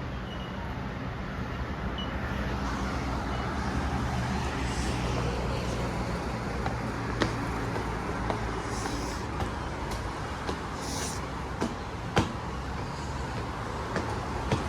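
Steady low rumble of motor traffic with a low hum, and a few short sharp taps now and then.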